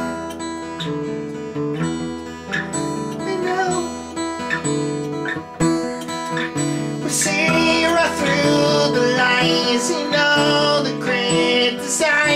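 Music: strummed acoustic guitar chords with a melody line over them, growing fuller and louder about seven seconds in.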